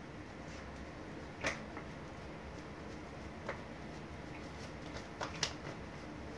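A small dog moving around inside a plastic-lined dog food bag: scattered sharp crinkles and clicks, about five of them, with the loudest near the middle and a pair close together near the end, over a steady low room hum.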